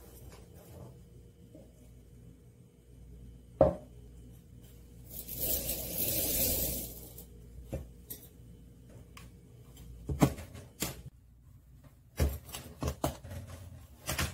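Dried rice and kitchen dishes being handled: scattered light clicks and knocks, with about two seconds of rushing, hissing noise around the middle.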